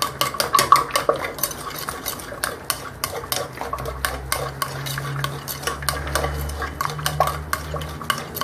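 Liquid cake batter being stirred by hand in a bowl, the utensil clicking against the bowl in quick, irregular strokes that thin out in the second half.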